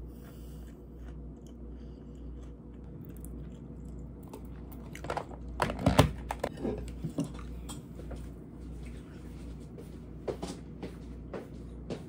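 A run of sharp clicks and knocks, loudest about halfway through, as a plastic lid is pressed and snapped onto a glass food-storage container. A few lighter clicks follow near the end, over a low steady hum.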